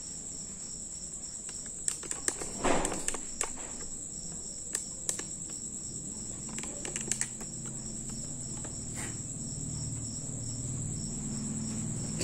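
Crickets chirping steadily in a high, evenly pulsing trill, with a few sharp clicks and knocks of handling between about two and seven seconds in, and a low hum that grows in the second half.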